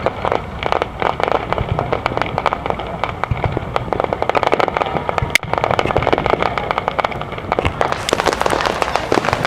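Fireworks crackling: a dense run of rapid pops that grows thicker and louder near the end.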